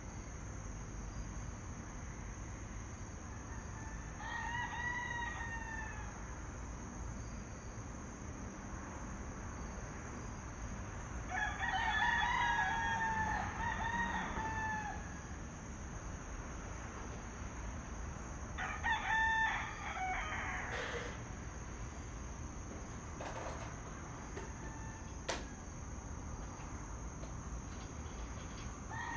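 Roosters crowing: three crows several seconds apart, the middle one the loudest and longest, with another starting at the very end. A steady high whine runs in the background.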